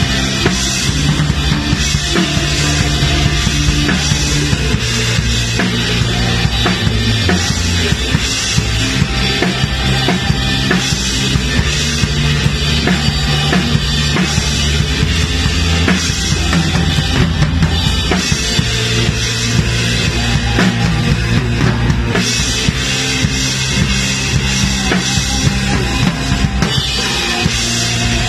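Live band music with an acrylic-shell drum kit close up and prominent: kick drum, toms and cymbals played in a steady groove over sustained bass notes.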